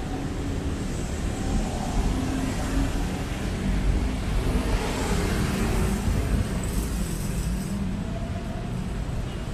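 City road traffic: a steady rumble of engines and tyres, with one vehicle passing close about five seconds in.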